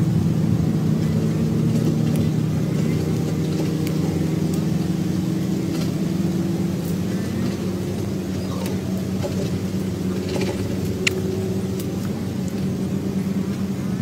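Steady low motor hum, with a few faint clicks and one sharp tick about eleven seconds in.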